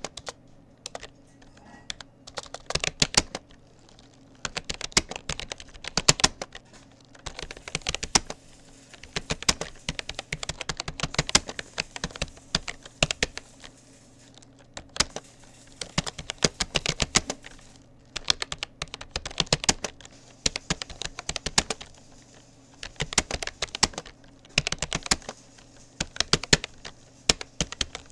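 Typing on a Rapoo computer keyboard: rapid runs of key clicks in bursts, broken by short pauses of a second or two.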